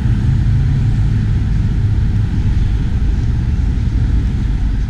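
A car driving along: a steady low drone of engine and road noise.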